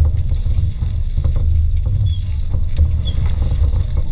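Low, fluttering rumble of an off-road vehicle's engine at low revs, with a few faint knocks.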